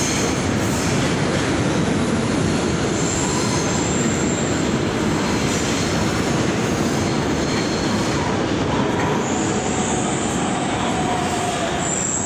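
Rio Metro train running through the underground station: a steady rumble with thin, high wheel squeals that come and go, the longest in the last few seconds.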